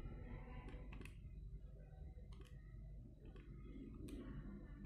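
Casio fx-991ES scientific calculator keys being pressed one after another: faint, irregular plastic key clicks, several over a few seconds.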